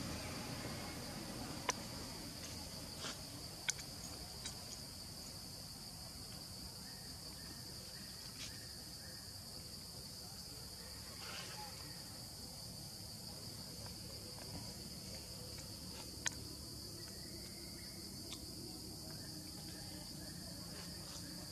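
Steady high-pitched drone of insects, with a few short sharp clicks scattered through it.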